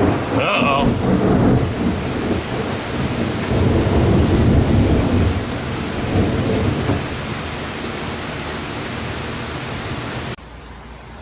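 Thunder rolling over a heavy downpour of rain, the long low rumble slowly dying away. The sound drops off abruptly near the end.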